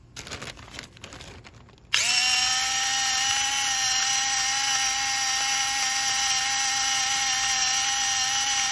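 Electric salt grinder's small motor switching on about two seconds in and running with a steady whine as it grinds table salt into a bag of flour, after a few faint handling clicks.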